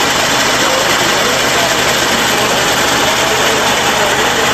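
Crop sprayer's pump and driving engine running steadily close up, an even mechanical drone with a hiss over it.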